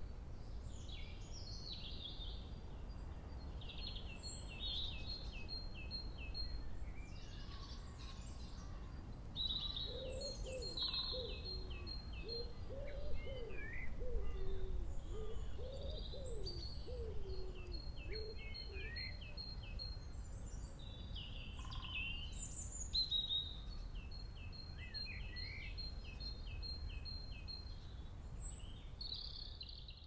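Early-spring birdsong: several songbirds singing repeated high phrases throughout, joined about a third of the way in by a low cooing call for several seconds, over a steady low background rumble.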